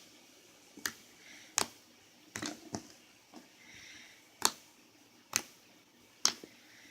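Slime being squeezed and pressed, giving sharp clicking pops about once a second, with a quick run of smaller pops about two and a half seconds in.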